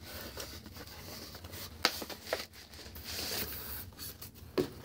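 Cardboard packaging being handled as a boxed Funko Pop figure is pulled out of its cardboard shipping box: scraping and rustling of cardboard and packing, with a couple of sharp knocks near the middle and a longer rustle a little after.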